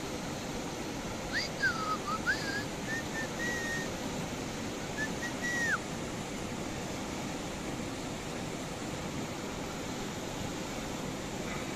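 Steady rush of a river flowing over a stony bed. For about four seconds near the start, someone whistles a short run of notes, sliding down and up and then holding two steady notes.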